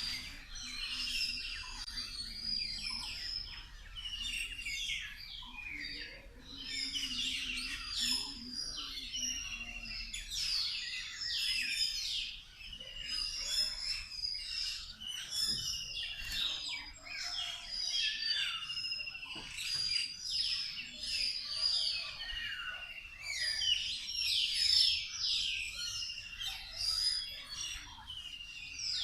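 A mixed flock of birds, mostly parrots, chirping and calling while feeding. Many high, short chirps overlap without a break.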